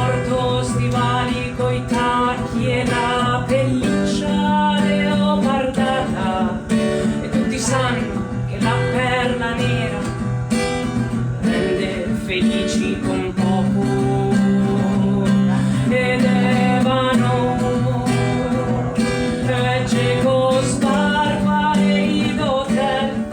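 A woman singing a song over strummed acoustic guitar.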